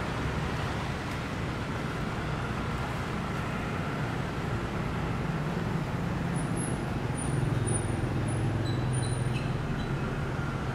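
Steady city street traffic, with cars and motor scooters driving past. An engine hum grows louder about seven seconds in as a vehicle passes close by. A few faint short high chirps come in the second half.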